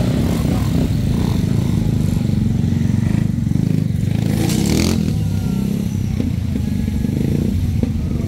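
Motorcycle engines running steadily at low speed as a column of bikes rides slowly along the street, with a brief rush of hissing noise about four and a half seconds in.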